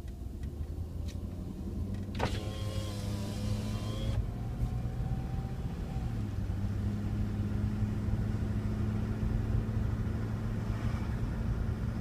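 Cabin sound of a 1999 Jeep Grand Cherokee V8 under way: a steady low drivetrain drone that shifts in pitch about six seconds in. The owner hears a subtle whining, clacking noise in 2nd to 4th gear under throttle on a cold engine and thinks it is the transmission. About two seconds in, a click opens a whine that lasts about two seconds and stops abruptly.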